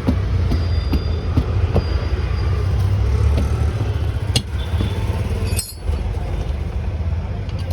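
Steady low mechanical rumble with scattered clicks and knocks, dropping out briefly about six seconds in.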